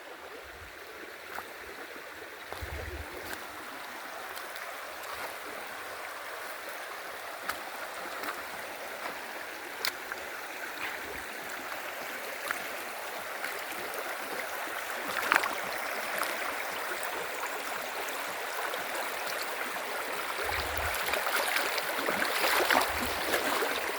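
Running water, a stream flowing steadily, growing gradually louder toward the end, with scattered small clicks and a few soft low knocks.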